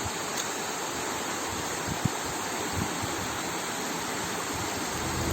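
Waterfall rushing: a steady, even hiss of falling water, with a brief low knock about two seconds in. Background music begins near the end.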